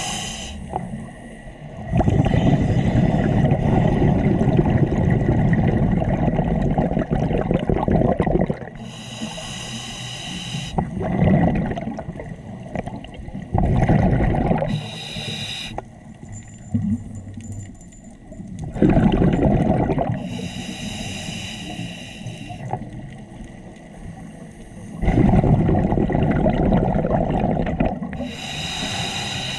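Scuba diver breathing through a regulator underwater: long rushes of exhaled bubbles alternate with short, hissing inhalations through the demand valve, in a slow breathing cycle.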